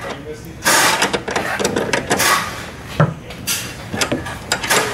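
Two 5/8-inch combination wrenches tightening a nylon-insert lock nut on a bolt: a series of short, irregular metallic scrapes and clicks as the wrench turns the nut in strokes.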